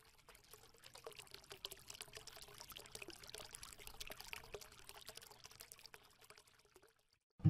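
Faint trickling like water being poured, made of many quick small clicks and splashes. It fades in over the first second and stops about a second before the end.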